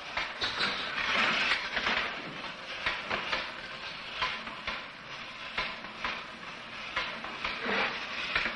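Mechanical fright toy, its moving parts clattering and rattling with many quick clicks, set off to frighten an infant rhesus macaque.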